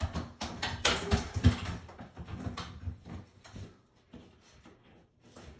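Irregular clicks, knocks and rattles of objects being handled, loudest and densest about a second in, then sparser.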